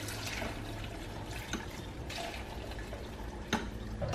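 Beef broth being poured from a cup into a Ninja blender jar full of dried chiles, a steady pour of liquid with two short knocks.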